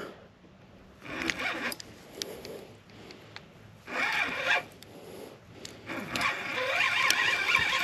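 Fishing reel buzzing in three spurts, the last the longest, as a hooked fish is played.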